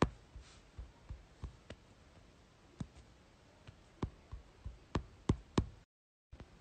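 A run of light, irregular clicks and knocks, about a dozen, uneven in spacing and strength.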